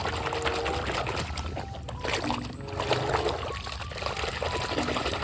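Water trickling steadily as mud is rinsed off a toy vehicle.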